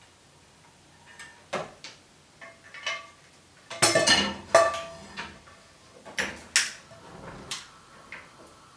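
Pots and pans being handled on a gas stove: a string of separate knocks and clinks, some ringing briefly. The loudest clatter comes about four seconds in, with a few more knocks later.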